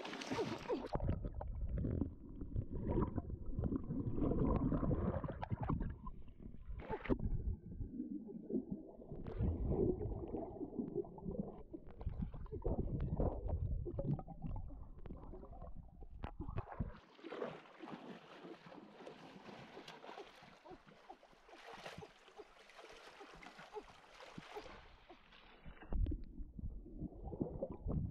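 Muffled underwater sound picked up by a camera submerged in a shallow stream: low churning rumbles and gurgles with many small knocks as hands move through the water. For several seconds past the middle the rumbling drops away to a faint hiss, then comes back near the end.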